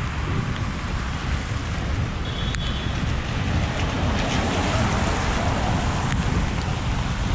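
Gusty wind buffeting the microphone, a constant low rumble, over a steady hiss of rain and traffic on a wet road.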